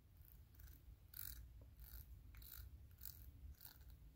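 Near silence, with faint soft scrapes about twice a second from hands working a needle-tip oil bottle against the threaded end of a Time-Sert insert driver while oiling its threads.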